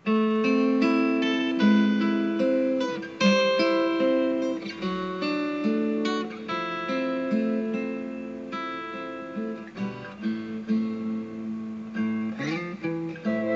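Background music: an acoustic guitar playing a melody of plucked notes and strummed chords.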